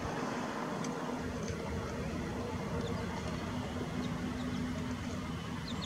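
Steady low hum with an even background hiss, and a few faint, short high chirps now and then.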